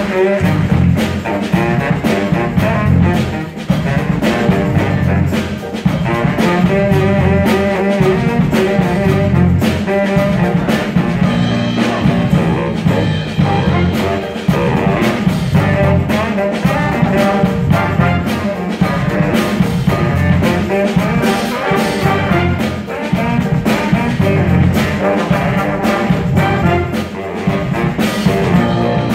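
School jazz band playing a brass-heavy jazz-funk number: trombones, trumpets and saxophones over a steady drum beat, with a baritone saxophone solo out front.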